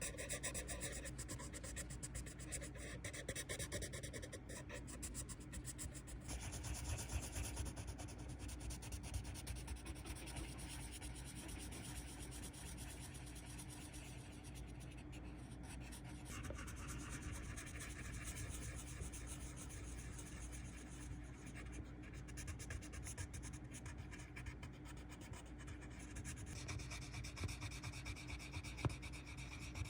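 Colored pencil rubbing across paper in continuous shading strokes. The texture of the sound shifts a few times, at about 6, 16 and 26 seconds in.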